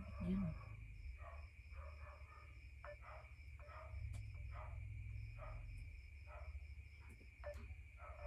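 Faint cricket chirping in rapid, even pulses over a steady high whine and a low hum, with a short low sound just after the start.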